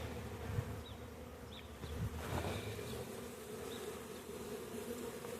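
Honeybee colony buzzing steadily: a mass of disturbed bees that are agitated as their hive is opened and taken out.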